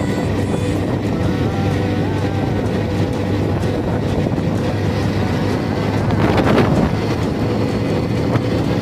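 Hero Xtreme 125R's single-cylinder engine running steadily, the sound issue its owner is showing. The sound swells louder about six seconds in.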